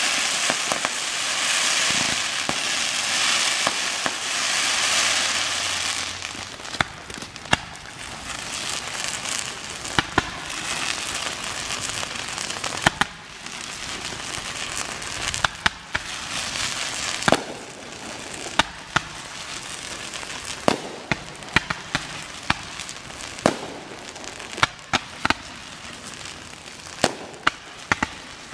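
Fireworks display: a dense crackling fizz for about the first six seconds, then a long string of sharp bangs and pops at irregular intervals as shells burst.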